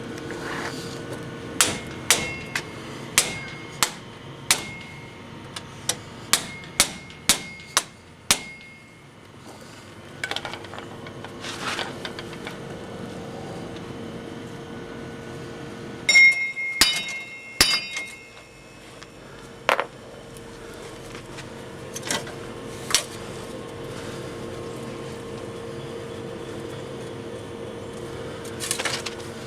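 Hammer blows on metal, each strike ringing briefly. About ten come at a steady pace of roughly one a second early on, then scattered strikes with a quick flurry midway and more near the end.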